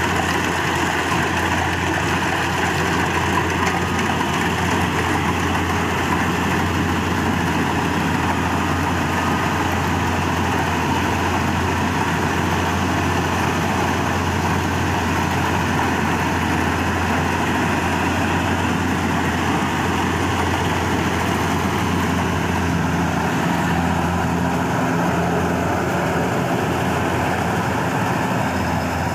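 Yanmar rice combine harvester's diesel engine running steadily under a dense, even machinery noise, with a slight change in tone about three-quarters of the way through.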